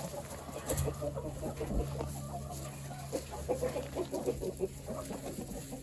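A flock of chickens clucking: many short, scattered clucks overlapping one another.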